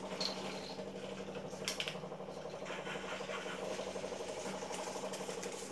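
Reverse-osmosis water purifier's booster pump running with a steady low hum, with a couple of faint clicks.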